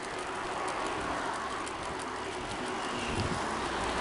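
Steady road noise while rolling along a roadside among bicycles and inline skaters, with wind on the microphone and passing traffic. A low rumble comes in near the end.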